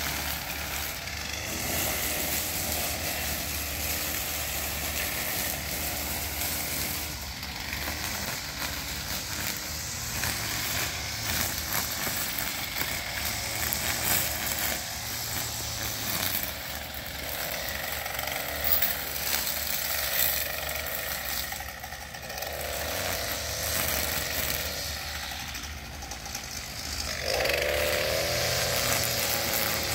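Echo SRM-230 two-stroke string trimmer running at cutting speed, its line working through weeds and grass down to bare dirt. The engine speed eases off and picks up again several times, revving up near the end.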